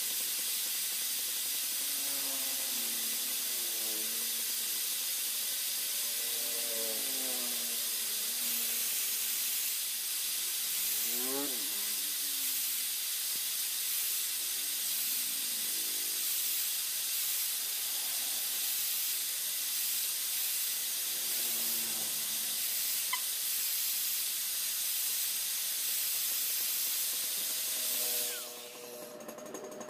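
Angle grinder grinding the steel of a brush-cutter blade: a steady, harsh hiss that cuts off shortly before the end.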